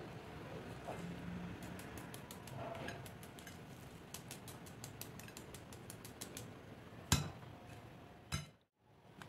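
Crisp, crumb-coated fried potato balls being broken apart by hand, giving a faint run of fine crackling crunches, followed by two louder sharp taps near the end.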